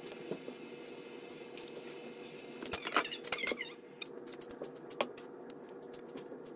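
Silicone spatula stirring and scraping a thick peach-mango filling in an enamelled cast-iron pot, with many small clicks and a brief squeaky flurry about three seconds in, over a steady hum.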